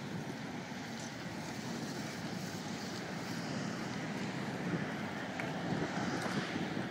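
Steady wind rush on the microphone of a phone carried on a moving bicycle, mixed with road traffic noise, growing a little louder near the end.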